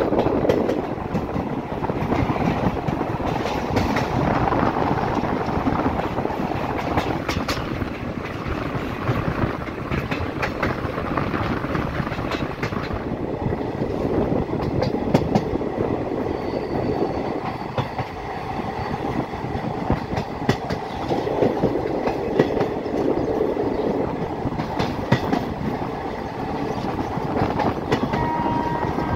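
Passenger train coach running along the track: a steady rumble with irregular sharp clicks as the wheels pass over rail joints.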